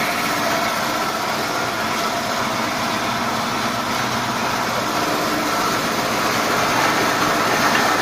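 Pneumatic garlic peeling machine and its compressed-air supply running: a steady machine drone with a hiss of air, growing a little louder near the end as the garlic cloves are blown about in the bowl.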